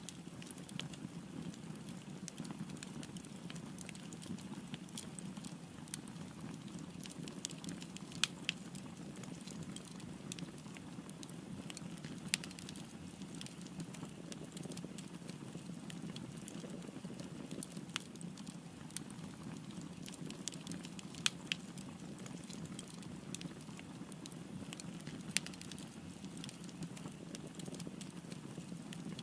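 Wood fire burning with a steady low rush and irregular crackles and pops, a handful of them sharper and louder.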